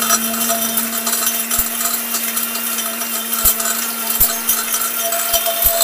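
Electric spice grinder machine running at full speed, pulverising a small load of spice: a steady motor hum under a dense grinding hiss, with scattered small clicks.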